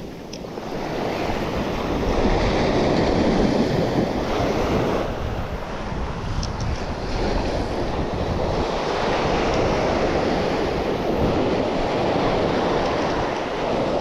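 Surf washing onto a beach, swelling and easing as the waves come in, with wind rumbling on the microphone.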